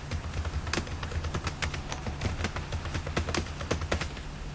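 Computer keyboard typing: an irregular run of quick keystrokes entering a password twice, stopping shortly before the end, over a low steady hum.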